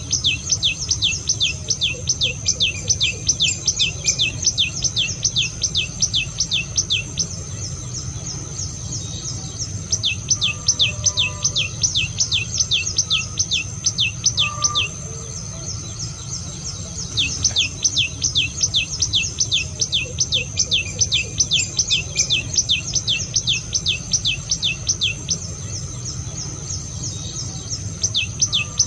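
Tailorbird singing: long runs of sharp repeated notes, each falling in pitch, about three or four a second, with short pauses between runs. A steady high insect drone and a low hum lie underneath.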